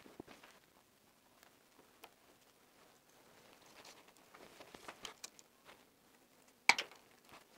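Hands handling the insulated conductors of a flush-mounted wall box: faint rustling and scraping of the wires, with scattered small ticks and one sharp click near the end.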